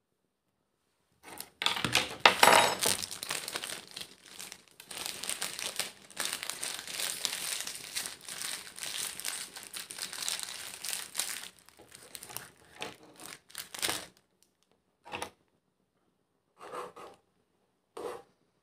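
Plastic Maggi noodle wrapper crinkled and crumpled in the hands, loudest near the start, then thinning out to a few short rustles toward the end.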